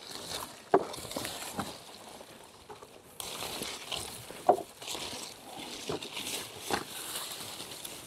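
Rustling of aronia bush leaves and branches during handpicking, with a few sharp snaps; the rustling grows louder about three seconds in.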